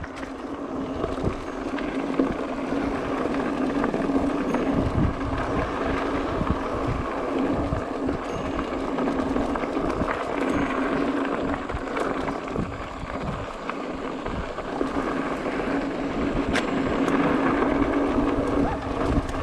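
Mountain bike rolling down a rocky, gravelly dirt trail: tyres crunching over stones, with irregular bumps and rattles from the bike over a steady hum.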